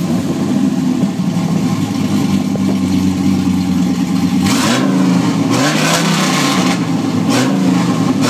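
Dodge Ram SRT-10's 8.3-litre V10 running through a rear-exit aftermarket exhaust: a steady idle, then from about halfway several quick blips of the throttle, the note rising and falling with each rev.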